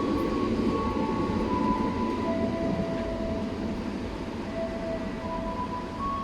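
Audio played loudly through a portable party speaker in a sound test: a dense low rumble with a few long held tones that shift from one pitch to another.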